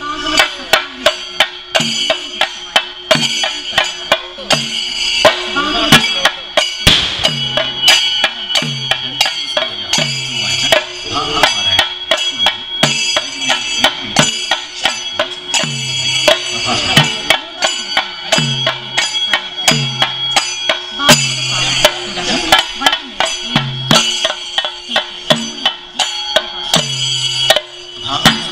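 Chenda drums beaten with sticks in a fast, continuous ensemble rhythm: a dense run of sharp strokes with deeper beats about once a second, over a steady high metallic ringing.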